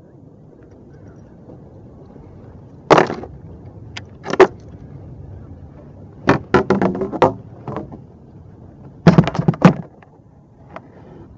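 Sharp knocks and clatters in irregular bunches, one about three seconds in, a quick run near the middle and another near the end, from a small bass being reeled to a kayak and lifted aboard.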